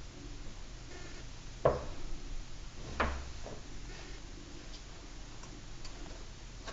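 Handling knocks from the plastic number plate being worked on a table: two sharp knocks about a second and a half apart, the first the loudest, among a few faint clicks.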